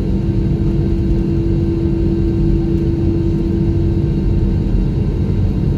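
Cabin noise inside an Airbus A321 taxiing after landing: the engines at idle give a steady drone and rumble, with one strong, steady humming tone on top.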